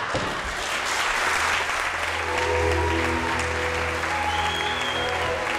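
Audience applauding, with music of sustained held notes and a low bass tone coming in about two seconds in.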